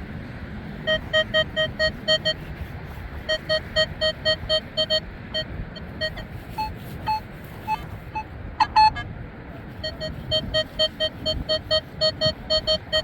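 Nokta metal detector beeping on a buried target: a short beep at one pitch repeats about four times a second in runs, with a few brief higher beeps around the middle. Wind rumbles on the microphone underneath.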